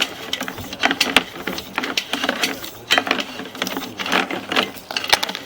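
Sewer inspection camera's push cable being fed down a drain pipe, its reel and cable clicking and rattling unevenly.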